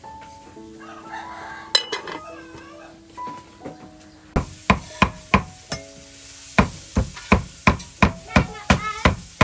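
A cleaver mincing raw pork on a thick wooden chopping block: sharp, even chops about three a second, starting about four seconds in. A rooster crows briefly near the start, over light background music.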